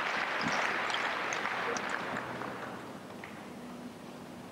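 Stadium crowd applauding after a point in a tennis match, the clapping dying away over a few seconds.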